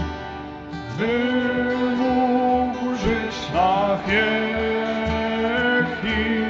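A slow worship song: singing with acoustic guitar accompaniment, long held notes sliding from one to the next.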